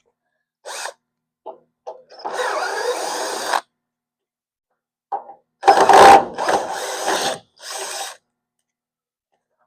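Power drill or driver backing out screws, run in several short spurts with pauses between; the longest and loudest spurt comes a little past the middle.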